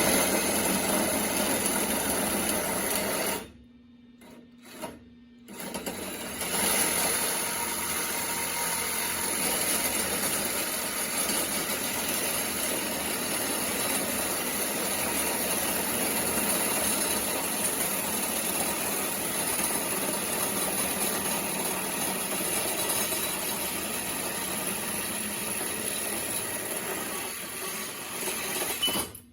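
Welding arc crackling and hissing steadily as a weld is run. It breaks off about three and a half seconds in, gives one short blip, resumes about two seconds later, and cuts off just before the end.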